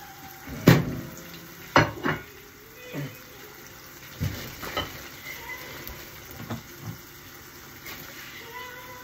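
Egg omelette frying in a pan with a low, steady sizzle. Over it comes a series of sharp kitchen knocks and clatters, about eight in the first seven seconds, loudest about a second and two seconds in.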